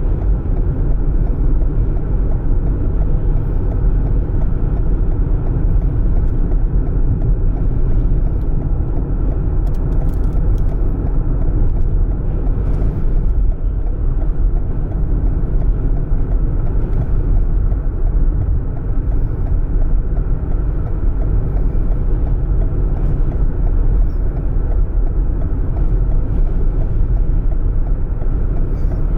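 Steady low rumble of a vehicle driving, with engine and road noise.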